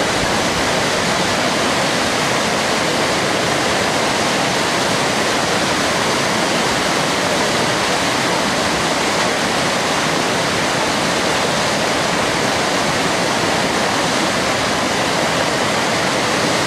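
Whitewater rapids on a slalom course rushing steadily, an even, unbroken wash of water noise.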